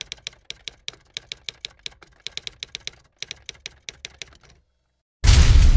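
Typewriter keystroke sound effect: a rapid, uneven run of clacks that stops about four and a half seconds in. After a short gap, a sudden loud crash with a deep boom cuts in near the end and rings on.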